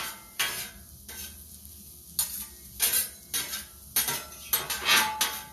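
Onions frying in oil on a hot griddle, sizzling, while a metal spatula scrapes and turns them in repeated strokes that come quicker near the end.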